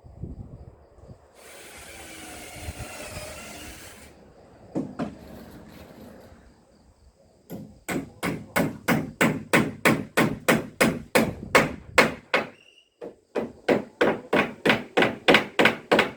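Hammer striking wood in two runs of quick, even blows, about four a second, with a short pause between them. Earlier, a few seconds of hiss and a single knock.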